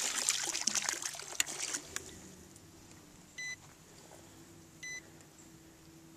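Water splashing and trickling at the surface as the manatee dives, fading away about two seconds in. Then two short electronic beeps about a second and a half apart.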